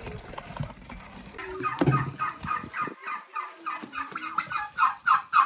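Poultry calling in a rapid, even run of short repeated calls, about five a second, starting a little over a second in. A knock sounds near the start of the calling.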